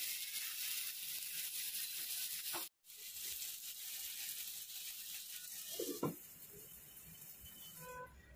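Marinated chicken pieces shallow-frying in hot oil in a pan, with a steady sizzle that cuts out for an instant about a third of the way in. About six seconds in there is a short clink, as of the glass lid going on, and after it the sizzle is softer.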